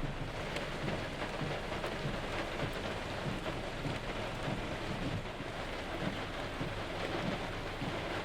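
Floodwater rushing, a steady wash of noise.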